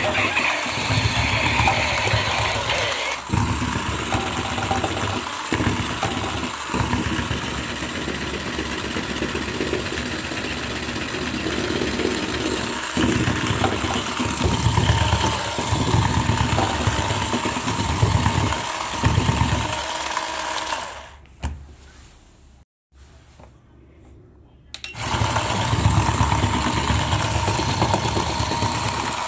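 Small electric motor and plastic gears of a battery-powered toy running fast and loud, driven at high voltage from a bench power supply. It cuts out for about four seconds near the end, then starts up again.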